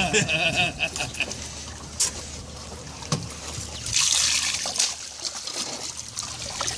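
Shallow lake water splashing and trickling around a hand handling a catfish at the water's edge, with a louder rush of splashing water about four seconds in.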